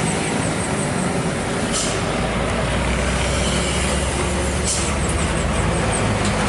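A heavy vehicle's diesel engine running steadily, its low hum growing stronger about two seconds in. Two short hisses of air come about three seconds apart.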